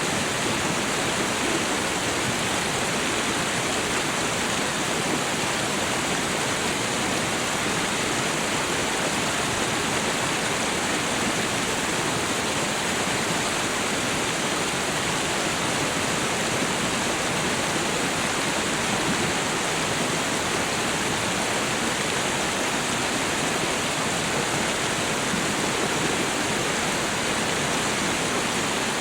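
Meltwater stream running and a small waterfall splashing: a steady, even rush of water.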